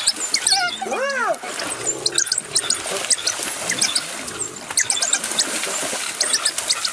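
Spotted hyenas splashing through shallow water as they chase an antelope, with animal calls: one rising-and-falling squeal about a second in and many short, high chirps throughout.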